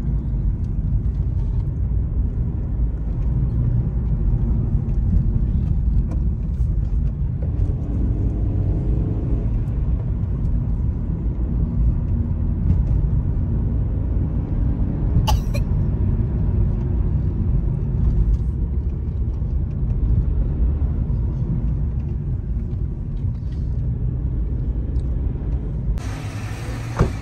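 Steady low rumble of a moving car's engine and tyres heard from inside the cabin, with one short click about halfway through. Near the end the rumble stops and a quieter outdoor sound takes over.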